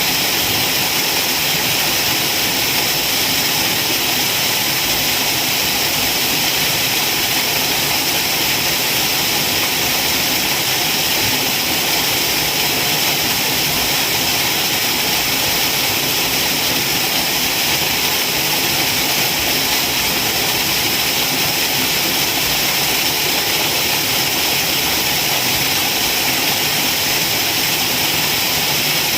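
Waterfall: water pouring and splashing in a steady, unbroken rush, loudest in the hiss range.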